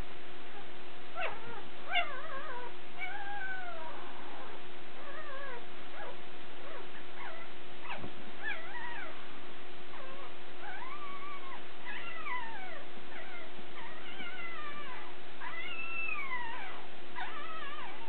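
Newborn Border Collie puppies squeaking and whining while nursing: many short, high calls that rise and fall in pitch, coming one after another. A steady faint hum sits underneath.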